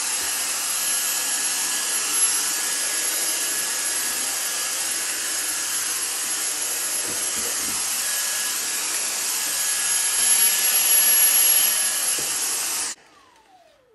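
Dyson V6 stick vacuum's motor running steadily with a high whine, powered by a DeWalt XR 18 V battery through an adapter and working well. Near the end it is switched off and the motor spins down with a falling whine.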